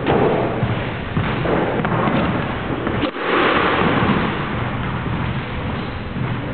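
Squash rally in an enclosed court: the ball struck by rackets and slamming into the front wall in sharp, echoing bangs a second or two apart.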